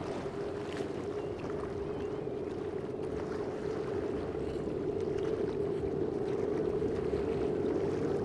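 Two boats, each powered by five Mercury Racing 450R outboards, running at high speed: a steady, single-pitched engine drone that grows slowly louder, over a hiss of wind and spray.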